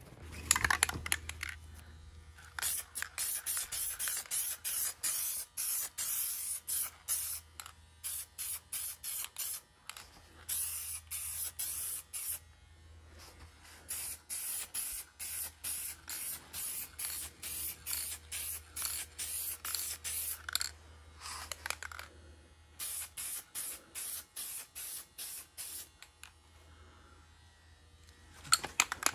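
Aerosol spray can sprayed in many short hissing bursts, about two a second, with a few brief pauses, as a leather headrest is coated.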